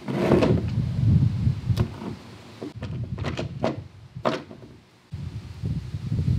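Rubbing and scraping as a heavy red power cable is handled and worked by hand, with several sharp clicks in the middle. The rubbing stops briefly about five seconds in, then starts again.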